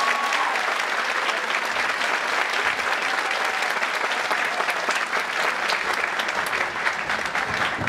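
Theatre audience applauding steadily, with the last notes of the music dying away just at the start.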